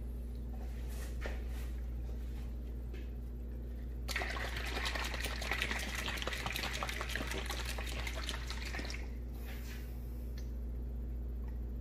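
Liquid polish sloshing in a bottle for about five seconds, starting about four seconds in, over a steady low electrical hum. Faint clicks before and after.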